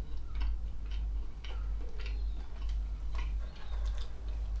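A mouthful of rye bread being chewed close to the microphone, giving short crunching clicks at an uneven rhythm of about one or two a second over a steady low hum.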